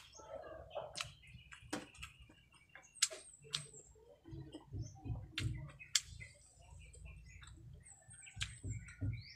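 Close-up mukbang eating sounds: a person chewing fried eggplant omelette and shrimp fritter with rice, with irregular sharp mouth clicks and smacks and soft rhythmic chewing thuds.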